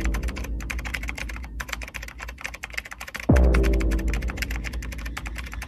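Typing sound effect, a rapid dense run of key clicks, over a deep bass music bed. A heavy low boom hits about three seconds in and rings away slowly.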